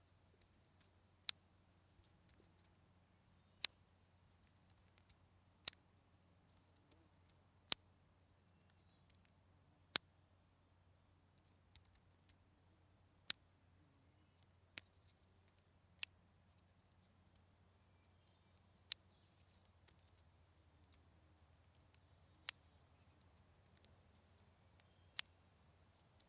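Clothespins snapping shut, one sharp click at a time: about ten loud clicks two to three seconds apart, with fainter clicks in between.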